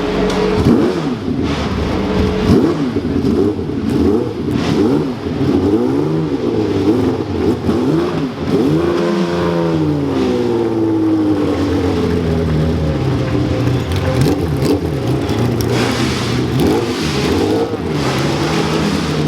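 BRM P180 Formula 1 car's V12 engine running at low revs with repeated throttle blips. There is one bigger rev that rises and falls about nine seconds in.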